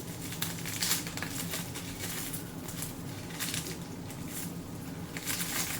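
Plastic shrink wrap crinkling in short rustling bursts as it is peeled off a statue part, over a steady low room hum.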